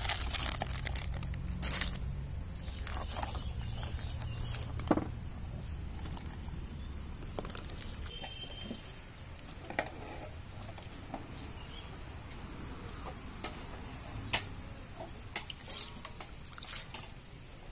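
Scattered light taps and clicks of peeled onions and a knife being handled on a steel plate, with a low rumble through roughly the first half. Near the end, water sloshes and knocks against a steel bowl and colander as the onions are washed.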